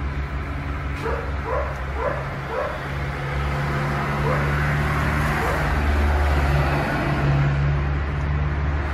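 A dog giving a quick run of short yips about a second in, then two more a few seconds later, over a steady low vehicle drone.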